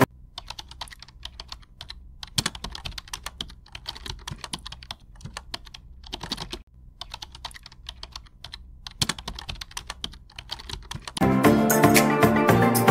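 Computer keyboard typing in irregular runs of quick clicks with short pauses between them. Background music comes back in near the end.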